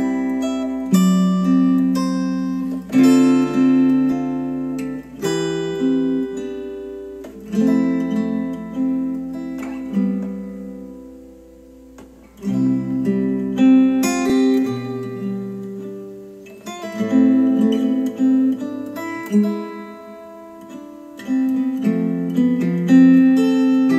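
Acoustic guitar music played back through a pair of KEF R3 bookshelf speakers and recorded in the room. It dies away a little before halfway through and then starts again.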